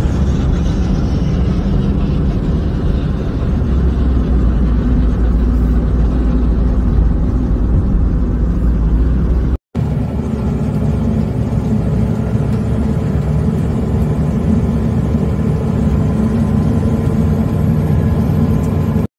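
Steady engine and road noise from inside a moving vehicle on a highway. After a brief cut about halfway through, the sound changes to a semi truck's engine drone and road noise heard from its cab, with faint steady engine tones.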